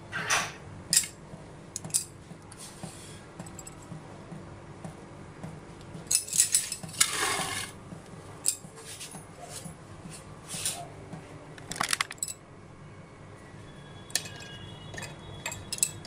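Bangles clinking and a ceramic serving bowl knocking lightly as hands arrange a garnish in it: scattered short clinks, with a longer scraping sound about seven seconds in. A faint steady hum lies underneath.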